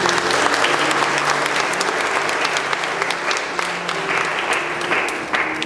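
Audience applauding, a dense patter of many hands clapping over faint soft background music. The clapping thins out near the end.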